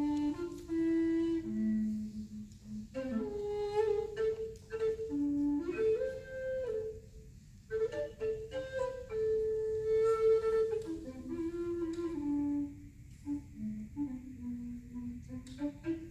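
Recorders playing long held low notes that slide up and down in pitch between one note and the next, with a couple of brief pauses between phrases.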